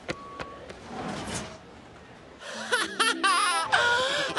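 Cartoon soundtrack music comes in loud about halfway through, with wobbling, sliding notes, after a quieter stretch of a few soft clicks and a brief steady tone.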